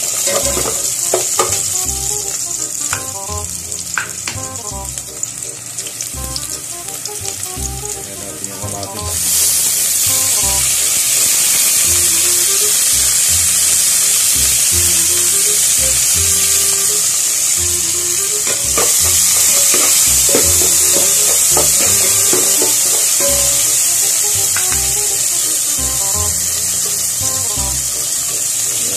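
Onion, garlic and tomato frying in hot oil in an aluminium pot: a steady sizzle, with a metal spoon clicking and scraping against the pot through the first several seconds. The sizzle grows louder about nine seconds in.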